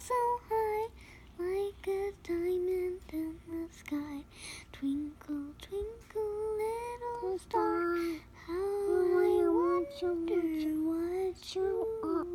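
A child's high voice singing a slow, wordless, lullaby-like tune in short held notes, some of them sliding up in pitch, with brief pauses between phrases.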